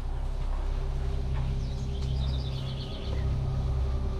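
Low wind rumble buffeting the microphone outdoors. A bird gives a quick run of high chirps about two seconds in.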